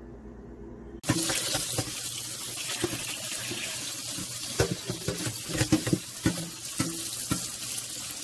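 Kitchen tap running onto smoked turkey tails in a stainless steel colander as they are rinsed, with irregular knocks and splashes. It starts suddenly about a second in, after a low steady hum.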